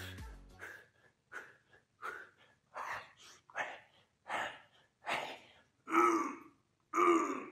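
A man breathing hard in short, even puffs while doing push-ups, about one breath every half second to a second, getting louder and turning into strained, voiced groans over the last couple of seconds.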